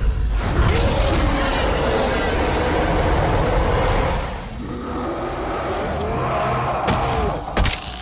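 Cartoon magic-portal sound effects layered over music: a dense, rumbling, crackling noise with wavering tones. Near the end comes a sharp crash like shattering.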